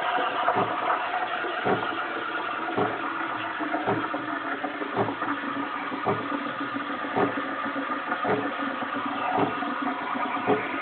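DeLonghi Magnifica ESAM 4200 automatic espresso machine running: a steady mechanical hum with a regular pulse about once a second.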